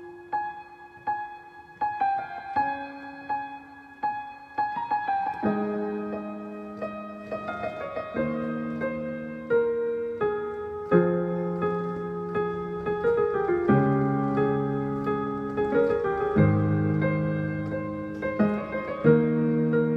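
Piano playing a slow, gentle piece. It opens with sparse single notes, about one every second, and from about five seconds in broadens into sustained chords with deeper bass notes.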